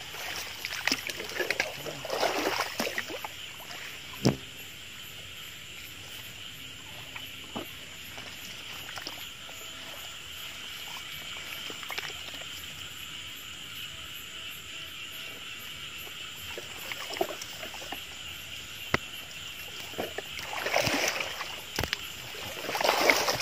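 Swishing and rustling of a bamboo electrofishing pole being pushed through wet leaves and grass, with light splashing, in bursts near the start and again near the end, and one sharp knock a few seconds in. Underneath runs a steady high-pitched drone.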